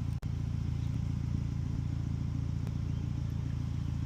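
A steady low mechanical hum, with a couple of faint light clicks.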